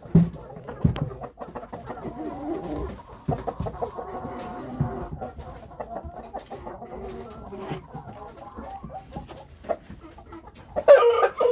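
Shamo gamecock clucking and calling in short repeated notes, with a louder call near the end.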